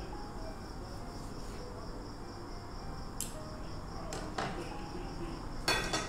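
Knife and fork tapping and scraping on a wooden cutting board while grilled steak is sliced: a few sharp clicks past the middle, then a longer scrape near the end, the loudest sound. A steady high pulsing trill runs underneath throughout.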